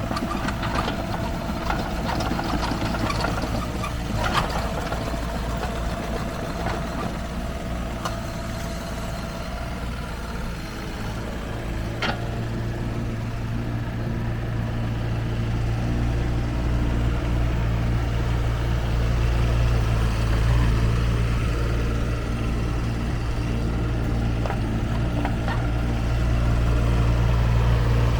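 Kubota K008-3 micro excavator's three-cylinder diesel engine running, with a few sharp knocks in the first half. The engine note becomes steadier and louder from about twelve seconds in.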